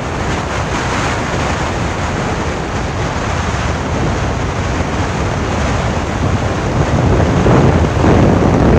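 Wind buffeting the microphone of a phone held up by a passenger on a moving scooter, a steady rushing noise with the ride's road noise beneath it; it grows louder about three-quarters of the way through.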